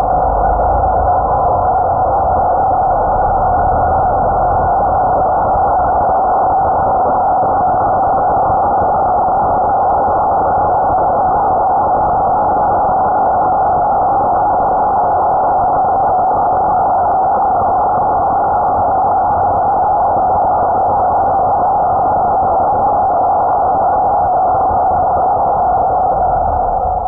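EGO POWER+ 56V brushless cordless chainsaw running at full speed, its motor and chain making a steady, muffled whine that cuts off suddenly at the end.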